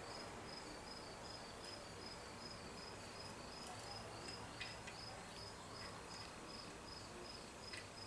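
Faint room tone with a cricket chirping steadily, a high pulsed trill about four times a second, and a couple of faint clicks.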